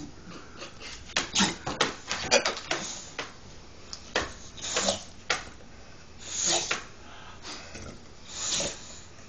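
A dog making odd noises to be let out of bed: a quick run of short sounds about a second in, then three longer breathy ones spaced out.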